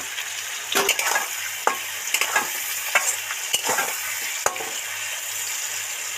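Potato wedges and sliced onions sizzling in hot oil in a metal kadai. A metal spatula scrapes and clinks against the pan several times as they are stirred, stopping about four and a half seconds in, after which only the steady sizzle goes on.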